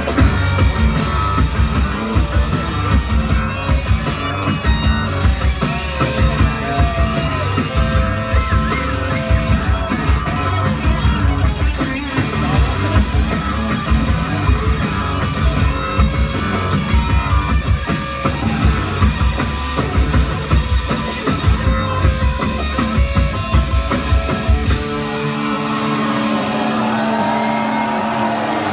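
Live rock band playing an instrumental passage: driving bass and drums with electric guitar. About 25 seconds in, the drums and deep bass drop out, leaving held guitar tones.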